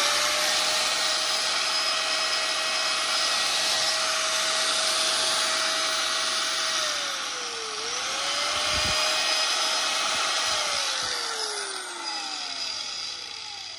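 Hitachi G10SH4 100 V angle grinder running unloaded at a steady high whine. About seven seconds in it slows briefly and comes back up to full speed. Near the end it is switched off and winds down with a falling whine.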